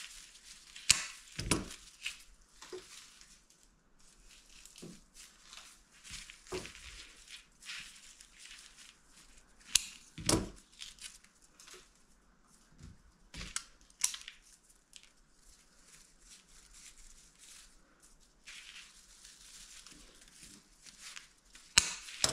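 Craft materials being handled: irregular rustling and crinkling with scattered sharp taps and knocks, the loudest about ten seconds in and again near the end.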